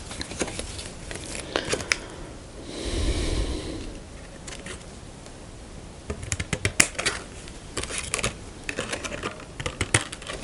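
Scissors cutting thin clear blister-pack plastic to make a shim: a crinkle of the film about three seconds in, then a quick run of snips and plastic clicks through the second half.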